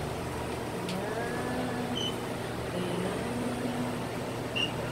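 A steady low mechanical hum over even background noise, with a few faint, brief pitched sounds.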